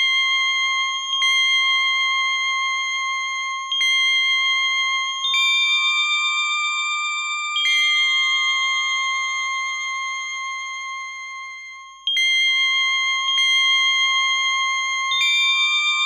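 Synthesizer music: slow, held bell-like notes that fade gradually, a new note or chord struck every one to two seconds, with one long note left to fade for about four seconds midway.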